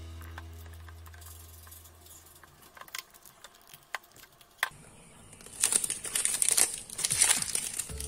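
Clear plastic protective film crinkling as it is handled and peeled onto a motorcycle speedometer's plastic lens: a few light clicks first, then a louder run of crackling over the last three seconds.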